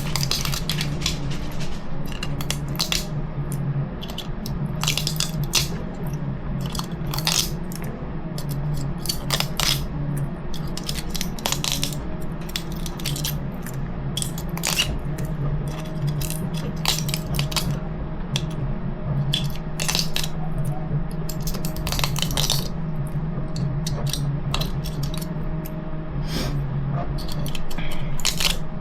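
Irregular clicks, scrapes and light knocks of hard 3D printed plastic parts being handled, over a steady low hum.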